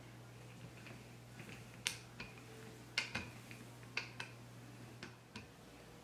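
Light, sharp clicks and taps of a plastic cookie cutter being handled and set down on a floured countertop, mostly in pairs about a second apart.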